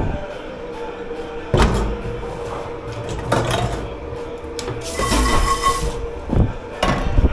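Dish pit clatter: dishes and pots knocking and clanking several times over a steady machine hum, with a hiss lasting about a second past the middle.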